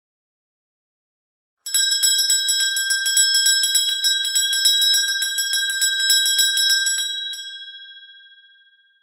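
Small Christmas bell rung rapidly, its clapper striking several times a second over one steady ringing pitch, starting about two seconds in. The strikes stop near the end and the bell rings on, fading away.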